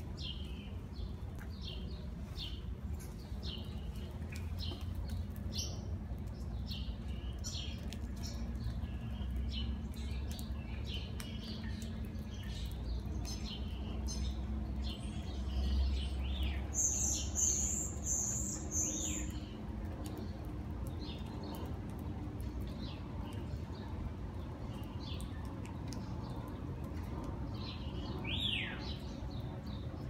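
Small songbirds chirping in quick, repeated short calls, with a high three-part call about halfway through and a single falling call near the end, over a low steady rumble that swells briefly in the middle.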